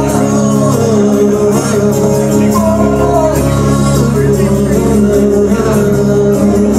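Live amplified acoustic guitar music with sustained chords and a wavering sung melody line above them, filling the hall.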